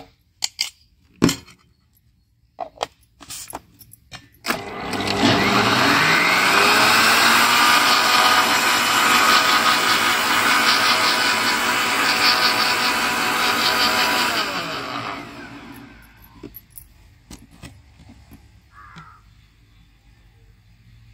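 Electric blender motor starting about four seconds in, spinning up in pitch and running steadily for about ten seconds as it blends watermelon juice, milk and sugar into a milkshake, then winding down. Before it starts, a spoon clinks and knocks against the plastic jar.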